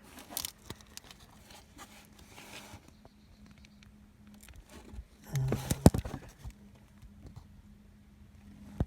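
Scattered handling noises: light plastic and metal clicks, knocks and rustling as hands work at the connector and fumble around the engine bay, with a brief voiced grunt about five seconds in and a sharp click near the end. A faint steady hum lies underneath.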